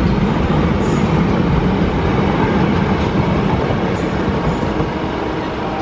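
Container freight train's wagons rolling past close by, a steady rumble of steel wheels on the rails, easing off slightly toward the end.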